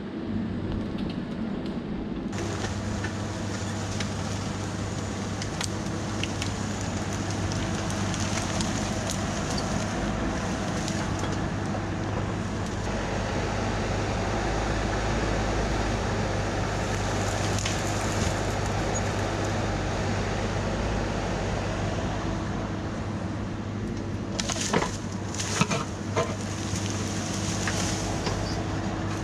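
Bobcat E26 mini excavator's diesel engine running steadily under hydraulic work, getting louder about two seconds in. Near the end come a cluster of sharp cracks and knocks.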